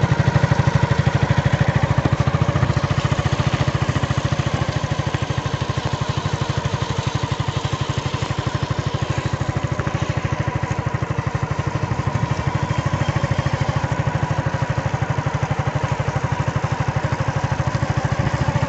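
A motor running steadily at constant speed: a fast, even low throb with a thin steady whine over it.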